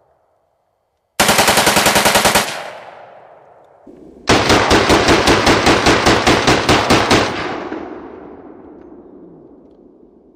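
AK-47-style rifle bump-fired through a homemade bump fire stock. A short, rapid burst of about a dozen shots comes about a second in. After a pause, a longer burst of about eighteen shots follows, a little slower and slightly uneven. Each burst leaves a long echo dying away.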